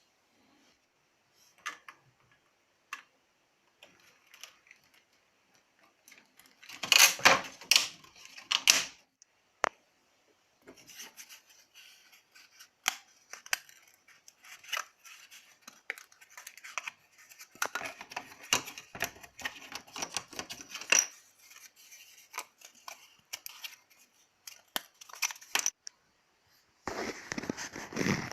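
Small laser-cut 3 mm plywood parts clicking, tapping and scraping as they are handled and fitted together, in irregular bursts, the busiest about seven seconds in and again at the very end.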